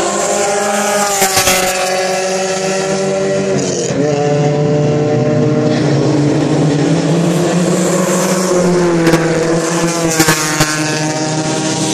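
Porsche 944 race cars' four-cylinder engines running hard past the straight, the engine note falling in pitch about a third of the way in and again near the end as cars go by. A few brief crackles cut across it.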